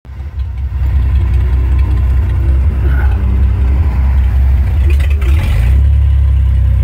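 1954 Chevrolet Corvette's 235 Blue Flame straight-six running at idle, a loud, steady low rumble heard from the driver's seat, with a brief rougher, noisier patch about five seconds in.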